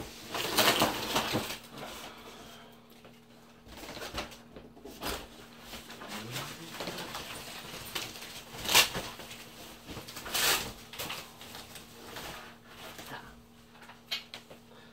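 Plastic bag and packaging wrap crinkling and rustling in irregular bursts as a package is lifted out of a cardboard box and unwrapped by hand, with a few sharper crackles.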